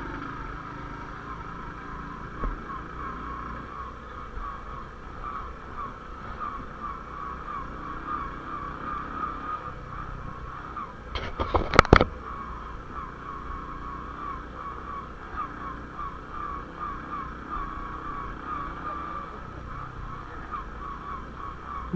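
Honda CD80 motorcycle's small single-cylinder engine running steadily while riding a rough unlit lane. About halfway through there is a brief burst of loud, sharp knocks.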